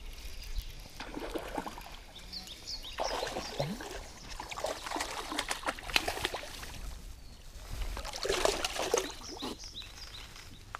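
Water splashing and trickling beside the boat as a hooked bass is brought in, mixed with rustling and handling noise close to the microphone in irregular spells.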